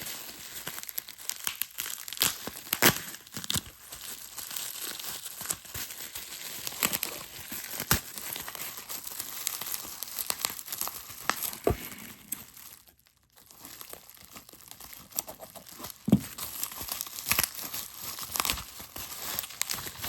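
Packing material crinkling and tearing as a toy train engine is unwrapped by hand, in irregular handling sounds with a brief pause about two-thirds of the way through.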